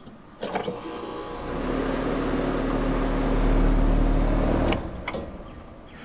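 Outdoor air-conditioner condensing unit starting across the line, with no soft-start kit: a couple of clicks, then the compressor and fan hum, building steadily, and cut off about five seconds in, winding down. The compressor draws about 60 A of inrush current on this start, on a unit that has been blowing fuses on startup.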